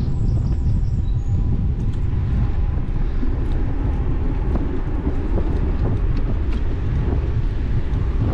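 Steady low rumble of wind buffeting the action camera's microphone, mixed with bicycle tyres rolling over brick paving, during an e-bike ride. A bird twitters briefly for about the first second.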